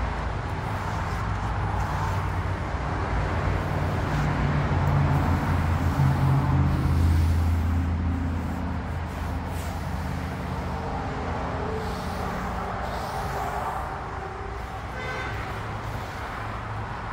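Road traffic noise: a vehicle engine's low hum swells to its loudest about seven seconds in and then eases off, over a steady rush of traffic.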